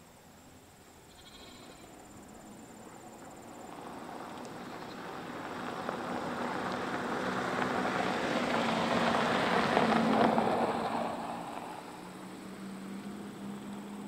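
An engine passing by: a low hum and rushing noise that swells slowly to a peak about ten seconds in, then fades.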